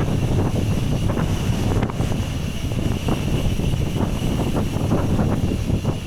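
Strong wind rushing over an action camera's microphone during a fast downhill bicycle ride: a dense, steady rumble with fluttering gusts.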